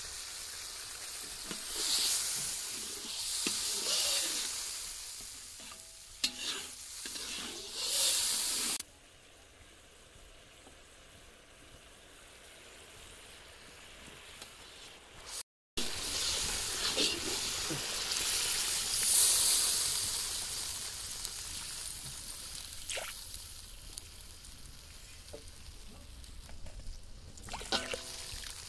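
Onion-tomato masala sizzling in a large iron kadhai while a metal spatula stirs and scrapes it, the hiss surging with each stir and easing off in the middle. Water starts pouring in from a steel jug near the end.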